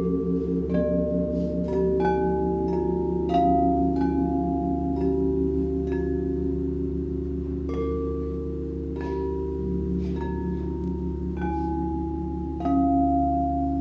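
Frosted quartz crystal singing bowls struck one after another with mallets, roughly once a second. Their clear ringing tones hold and overlap into a sustained chord that pulses slowly.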